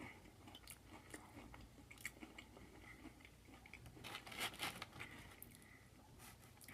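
Faint mouth sounds of someone biting and chewing an onion ring, soft scattered clicks with a slightly louder patch about four seconds in.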